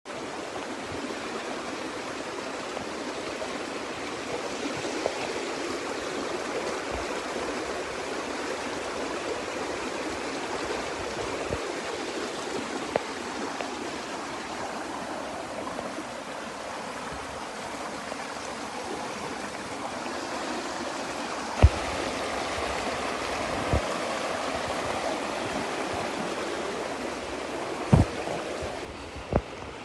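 Steady rushing of flowing river water, the Charles River, with a few brief sharp knocks in the second half, the loudest of them about two-thirds of the way through and near the end.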